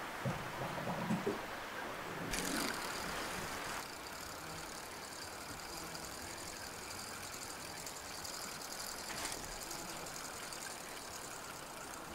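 A fishing rod is cast a couple of seconds in, followed by a fishing reel winding the lure back with a steady, fine ticking whir.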